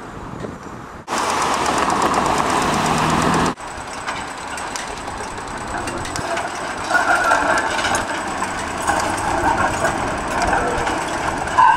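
Electric tram running around a curve of street track, its steel wheels clattering and grinding on the rails, getting louder about seven seconds in. Early on there is a separate, louder stretch of noise that starts and stops abruptly.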